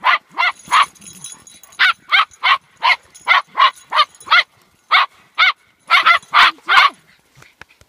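A dog barking sharply over and over, about twenty barks in quick runs of two to three a second with two short breaks, stopping about a second before the end. It is excited barking at dogs play-wrestling.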